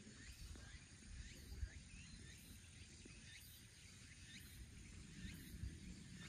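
Faint outdoor ambience: a low wind rumble on the microphone with a couple of louder gusts, under short rising chirps that repeat every half second or so and a faint high pulsing about once a second, typical of insects and birds.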